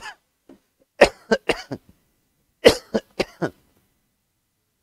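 A man coughing in two short fits of several sharp coughs each, the first about a second in and the second near the middle.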